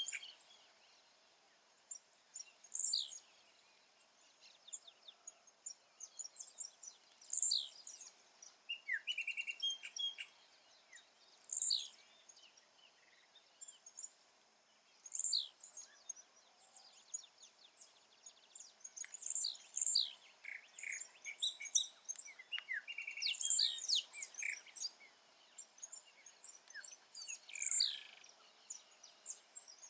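Blue-black grassquit (tiziu) singing, repeating its short, sharp song phrase about every four seconds. Fainter chirps fill the gaps between phrases.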